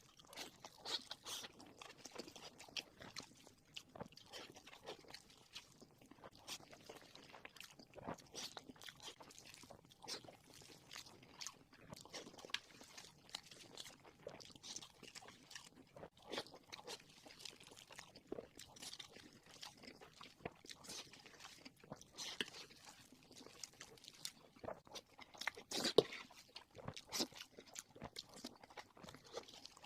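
Close-up chewing and crunching of crispy fried pork, with irregular crackly bites and smacking throughout and one sharper, louder crunch near the end.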